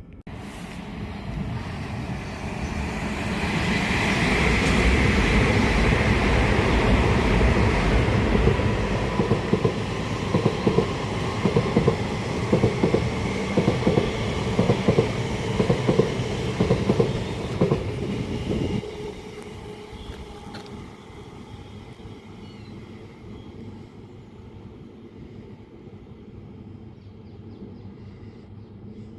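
A train passing on the main line: a rushing noise builds to a loud peak, then a long run of wheels clacking over rail joints, which cuts off about 19 seconds in as the last carriage goes by.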